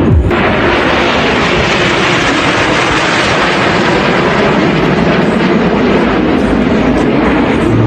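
Steady, loud rush of jet engines from a formation of Snowbirds CT-114 Tutor jets flying overhead.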